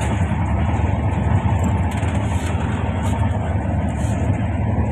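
Express passenger train running at speed, heard from inside a coach: a steady low rumble of wheels on the rails, with faint light rattles.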